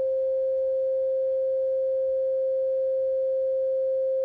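A steady electronic beep: one pure tone held at an even level without a break, the comedy sound effect for ringing, deafened ears.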